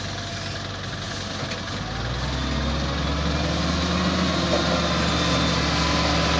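XCMG LW300KN wheel loader's diesel engine running, revving up about two seconds in and holding a louder, steady note as the boom lifts the loaded bucket.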